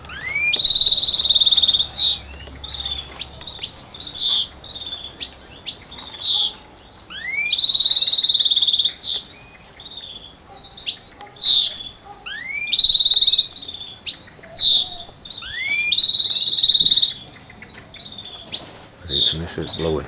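Caged goldfinch mule, a goldfinch × canary hybrid, singing its brains out: loud phrases of rising sweeps and fast, held trills, repeated again and again with short breaks between them.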